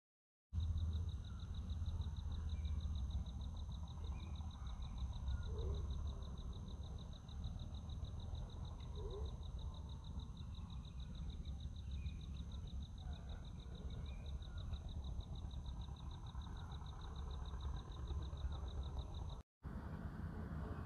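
Outdoor ambience of a steady high, evenly pulsing insect trill over a low wind rumble on the microphone, with a few short chirps from birds or frogs. The sound cuts out for a moment near the end.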